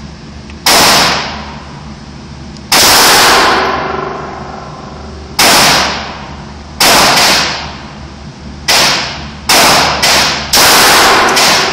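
A .380 semi-automatic pistol firing about ten shots at an uneven pace, some in quick pairs, each loud crack followed by a short echo in the indoor range.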